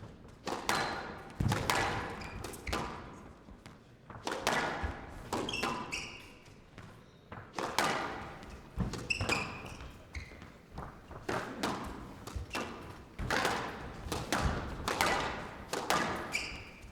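Squash rally: the ball cracked by rackets and slamming into the court walls in sharp knocks roughly once a second, uneven in spacing, with short high squeaks between some strikes.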